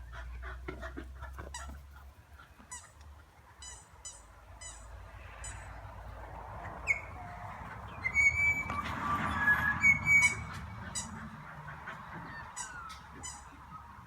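Several wild birds calling, with quick repeated high chirps throughout and a louder stretch of harsh, honking calls about eight to eleven seconds in.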